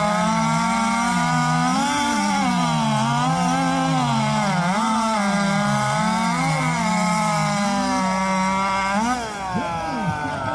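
Two two-stroke chainsaws racing flat out through a log, their pitch wavering up and down as the chains load and free up in the cut. They cut off about nine seconds in, as the cuts finish.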